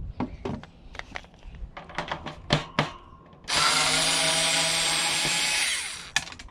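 Light clicks and knocks of handling, then a power drill driver runs steadily for about two and a half seconds, unscrewing a screw from the tower heater's casing, and winds down, followed by a single click.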